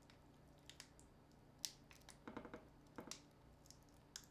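Faint clicks and taps of a smartphone being handled and pried apart by hand, with one sharper click about one and a half seconds in and two brief bursts of rapid rattling clicks in the middle.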